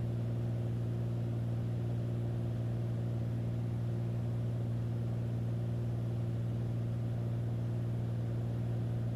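Beechcraft A36 Bonanza's piston engine and propeller droning steadily in flight, heard inside the cockpit: a constant low hum with even overtones, unchanging in pitch and level.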